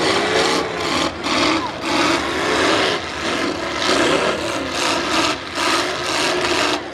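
V8 demolition-derby car engines revving hard through open exhausts, a raspy note that surges and falls in pitch again and again.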